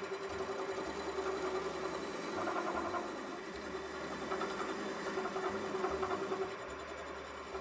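Wood lathe motor running steadily while a hand tool is held against a small wooden dowel spinning in the chuck, with scraping from the cut coming and going, strongest about halfway through and again for a couple of seconds after that.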